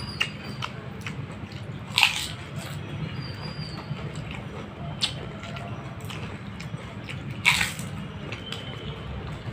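Close-up eating sounds of fuchka (panipuri): the crisp, hollow fried shells cracking as they are bitten, with wet chewing and squishing. The sharpest crunches come about 2 seconds in and again near the end, with smaller ones in between, over a steady low hum.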